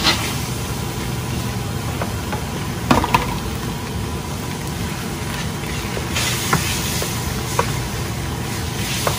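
Fried rice sizzling in a hot pan over a steady low rumble, with a few sharp knocks of the spatula against the pan; the sizzling hiss grows louder about six seconds in.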